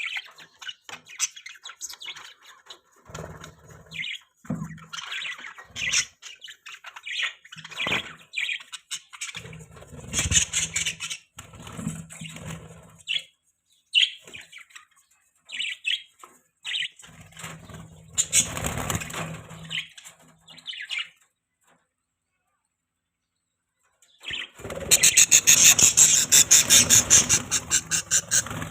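Budgies chirping and twittering in many short, high calls. After a few seconds of near silence comes a loud, rapid rattling run of about ten strokes a second, lasting some four seconds near the end.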